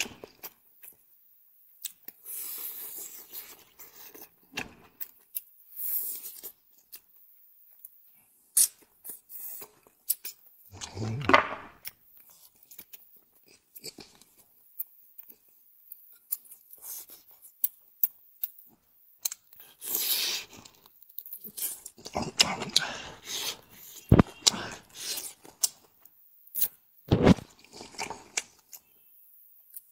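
Close-miked eating sounds: a person chewing and biting food in irregular bursts with short pauses between.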